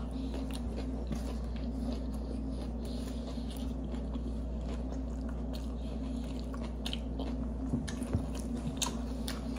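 Close-miked chewing and mouth sounds of people eating sub sandwiches, with a few small smacks and clicks near the end, over a steady low hum.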